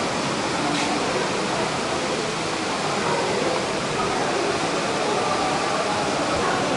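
Steady rushing background noise, even and unbroken.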